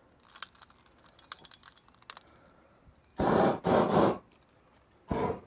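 Propane weed-burner torch being lit: a few light clicks, then three short, loud rushes of burning gas as the flame is fired in bursts, the last near the end.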